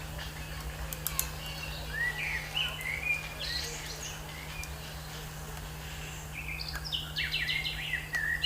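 Songbirds chirping: several short separate calls, then a quick run of notes near the end, over a steady low hum.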